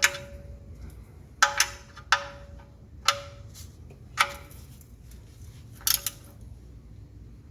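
Sharp metallic clinks from a wrench working on the engine's oil drain plug bolt as it is tightened. There are about half a dozen scattered strikes, each with a short ringing note.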